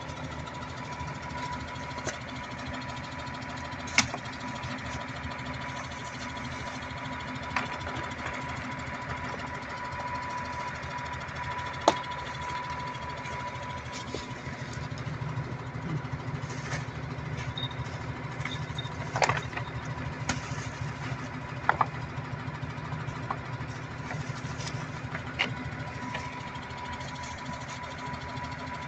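Wheel loader's diesel engine idling steadily, with several sharp knocks of rocks being set down on stones.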